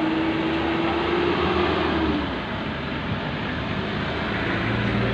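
Trucks and cars driving past close by, a mix of engine rumble and tyre noise. A steady engine hum rises slightly and fades in the first two seconds, and a low engine drone comes in near the end as a truck goes by.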